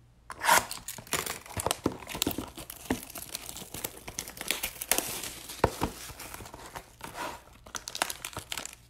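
Plastic shrink-wrap being slit and torn and cardboard rustling as a sealed trading-card hobby box is cut open and handled: a dense run of crinkling and sharp crackles that starts about a third of a second in.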